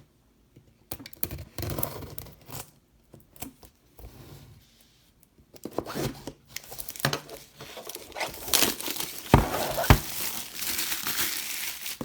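Plastic shrink wrap being cut and torn off a cardboard box, crinkling and rustling. It grows louder and busier about halfway through, with two sharp knocks near the end.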